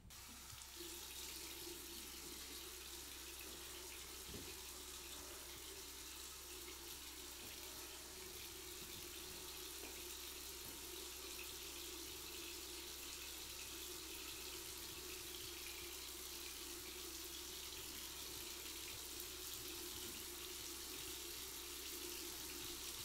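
A bathroom tap running steadily into a sink, an even hiss of water.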